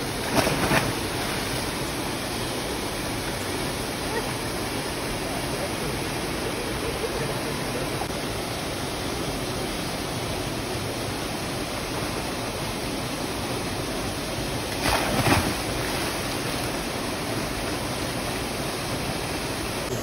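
Steady rush of water from a stream and waterfall. There is a short splash about half a second in as a man dives into the pool, and another brief burst around fifteen seconds in.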